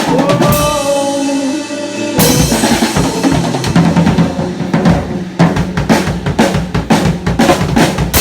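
Drum kit played along with a rock song: a held note of the song for about two seconds, then a busy run of bass drum, snare and rimshot hits that grows denser toward the end, closing on a loud final hit.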